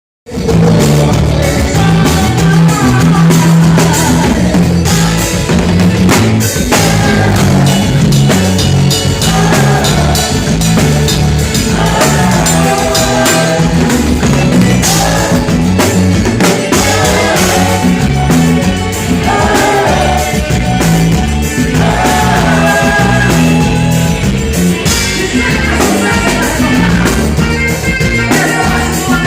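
A band playing loud music with a drum kit, a pulsing bass line and a singing voice that comes in and out.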